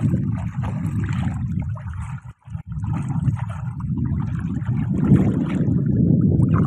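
Hands splashing and sloshing in shallow muddy water while groping for fish, over a steady low rumbling noise. The sound drops out briefly about two and a half seconds in.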